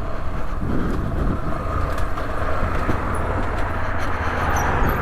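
Rieju Adventura 125 motorcycle's 125cc engine running steadily while being ridden along a road.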